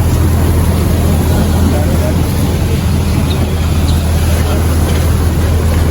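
Boat engine running steadily under way, a constant low hum over a wash of noise.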